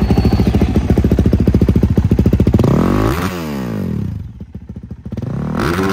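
Dirt bike engine revved by hand on its stand: it runs high for a couple of seconds, then a sharp rev rises and falls back, and a second quick blip comes near the end.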